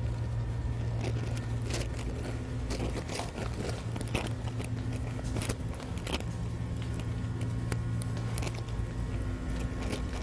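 Steady low electrical hum with scattered sharp clicks and crackles.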